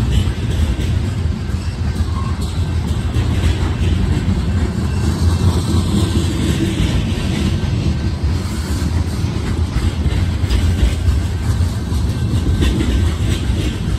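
Freight train cars, covered hoppers and tank cars, rolling past with a steady loud rumble, their wheels clacking over the rail joints.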